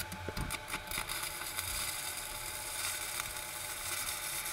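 Stick-welding (MMA) arc from an inverter welder set to 68 amps, crackling and sizzling steadily while a bead is run.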